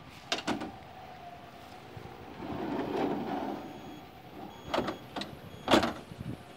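Kobelco hydraulic excavator running with a steady whine and a swell in noise about halfway through, broken by several sharp metallic knocks, the loudest near the end.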